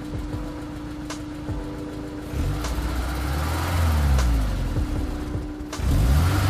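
Honda S2000's four-cylinder engine idling, then revved twice: a slow climb about two seconds in that peaks and falls back, and a quicker rev near the end.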